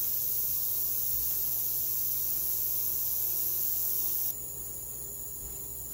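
Benchtop ultrasonic cleaner running with a steady high-pitched hiss over a faint low hum, a shotgun receiver in its tank resting metal on metal on the bottom. About four seconds in the sound drops abruptly to a quieter, thinner hiss.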